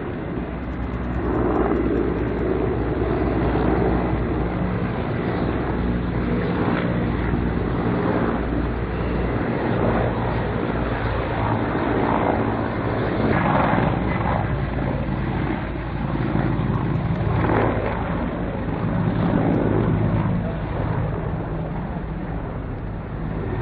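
Low-flying Mil Mi-171 and Mi-24 military helicopters. Their main rotors and turbine engines run loud and steady with a low, even rotor beat, and the sound swells and eases several times as they pass.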